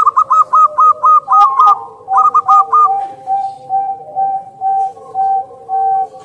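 Zebra dove (perkutut) cooing: a quick run of short, higher staccato notes, a second brief run a little after two seconds, then a lower coo repeated about three times a second.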